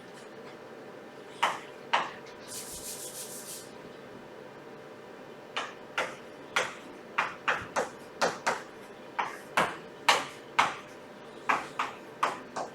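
Writing on paper: short scratchy strokes, a couple early on, then a steady run of about two a second through the second half, with a brief rasping rub a few seconds in.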